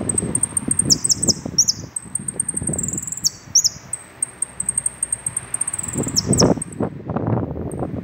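Saffron finch (jilguero) singing: a fast run of very high ticking notes broken by sharp downward-swept whistles, five of them, over a low rumbling noise.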